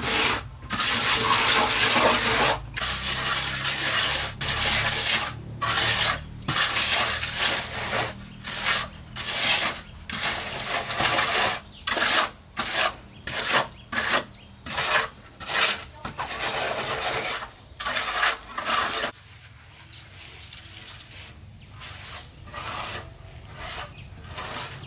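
Steel trowel scraping and smoothing a wet cement floor screed in repeated strokes. The strokes stop about 19 seconds in, leaving only faint sounds.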